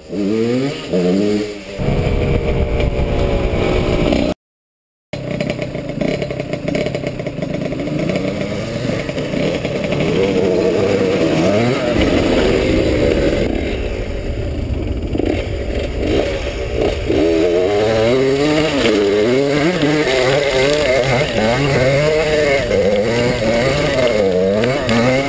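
Husqvarna WRE 125 two-stroke single-cylinder engine with a Giannelli exhaust, heard from a helmet-mounted camera, revving up and down over and over as the bike is ridden, with clatter from riding over rough ground. The sound drops out completely for a moment about four seconds in.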